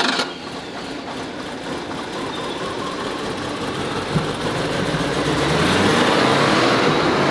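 Mercedes-Benz 380 SL's V8 engine running at idle just after starting, growing gradually louder.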